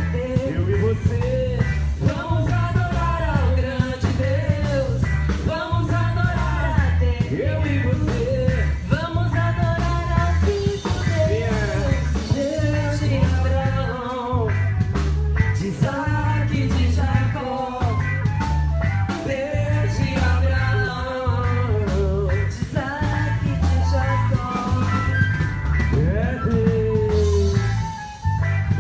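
A sung song played over a loudspeaker sound system, with a singing voice over a steady pulsing bass beat. There is a brief break about a second before the end.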